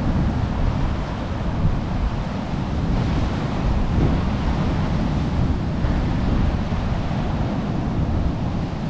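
Tropical-storm wind buffeting the microphone in a low, gusting rumble, over the steady wash of heavy surf breaking on the beach.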